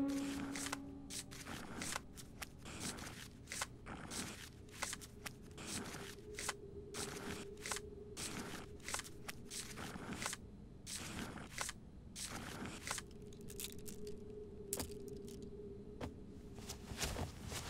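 Faint, irregular small clicks, crackles and scrapes, several a second, like light handling of paper or small objects, over a faint steady low hum.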